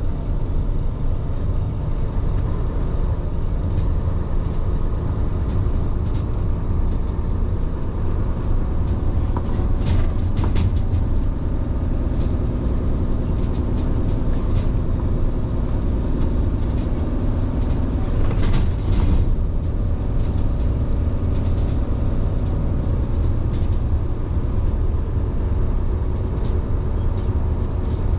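Tractor-trailer driving on the expressway: a steady, heavy low engine and road drone, with two brief noisier bursts about a third and two-thirds of the way through.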